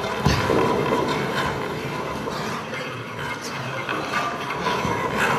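Steady mechanical clatter with irregular clicks and rattles.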